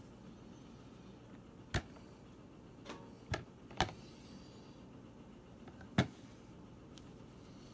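Five scattered sharp clicks and taps of small plastic kit parts being handled and fitted together, the loudest about six seconds in.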